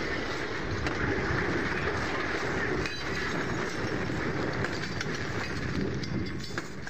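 Steady rumbling roar of burning, wrecked cars just after a car bomb blast, with no single bang.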